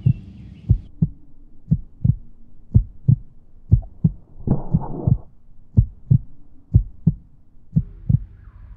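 Heartbeat sound effect: a double thump about once a second, over a low steady drone, with a short hiss swelling up about halfway through.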